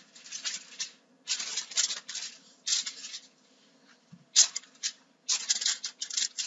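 Sheets of aluminium foil rustling and crinkling in irregular bursts as they are handled and taped together.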